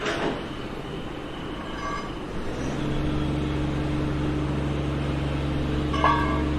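Demolition-site sound: a heavy machine's engine comes in about two and a half seconds in and runs at a steady low hum over a rumbling background. There is a clatter of debris at the start and a single ringing metal clank near the end.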